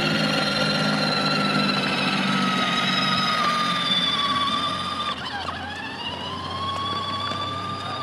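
A small motor whining steadily. Its pitch dips sharply a little past halfway and then climbs back.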